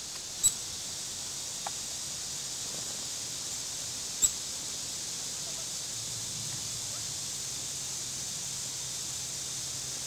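Quiet woodland ambience: a steady high hiss with two short, sharp clicks about four seconds apart.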